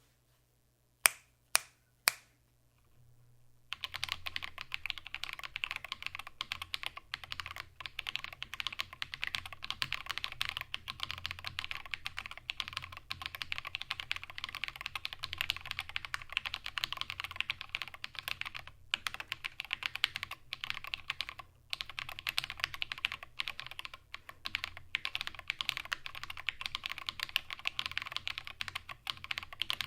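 Fast, continuous typing on an XD75re ortholinear mechanical keyboard with Holy Panda tactile switches lubed with Krytox 205g0, SA keycaps and an aluminum case with a tempered glass bottom. Three louder sharp clicks come about a second apart near the start, and the steady typing begins about four seconds in.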